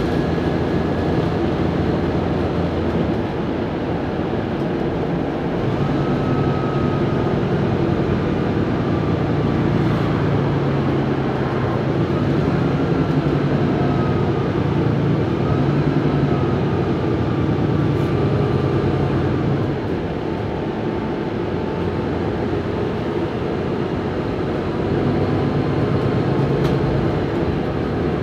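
Interior ride noise of a Mercedes-Benz O530GL CapaCity L articulated bus under way: a steady hum of engine, drivetrain and road rumble that swells and eases with the driving. A faint whine glides up and down in pitch, and there are a few light ticks.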